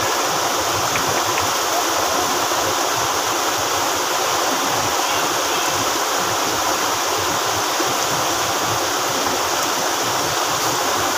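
Mountain stream rushing steadily over boulders and small cascades, a loud, even rush of water.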